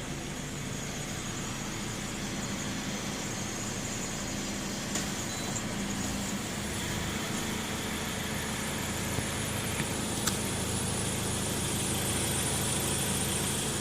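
Toyota Wish engine running steadily, with an abnormal noise from the exhaust pipe that marks an exhaust fault. A couple of faint ticks come about five and ten seconds in.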